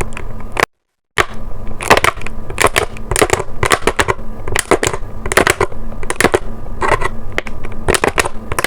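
Thin plastic water bottle crackling as it is gripped and pierced over and over with a large safety pin, in sharp irregular crackles about two or three a second. The sound cuts out briefly about a second in.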